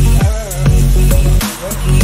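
Background music with a heavy bass line and sharp drum hits.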